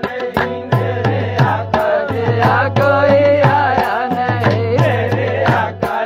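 Tabla pair played in a steady rhythm of about three strokes a second, the bass drum giving a low sustained tone under the strokes, with a voice singing over it.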